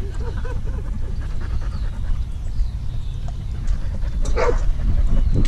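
Siberian husky panting close to a camera mounted on its back, over a steady low rumble, with a brief sharp burst of noise about four and a half seconds in.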